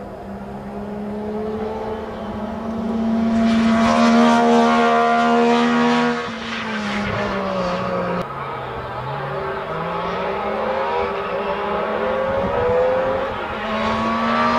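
MG Metro 6R4 rally car's V6 engine under hard acceleration on a special stage. The revs climb, cut sharply about six seconds in as the driver lifts off, sink low for a moment, then build again through the gears.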